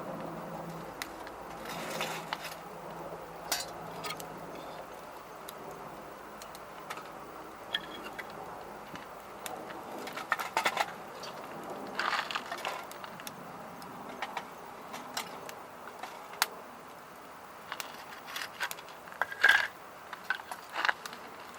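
Conifer firewood fire crackling, with scattered sharp pops and clicks over a steady hiss, a few louder pops clustered about halfway through and near the end.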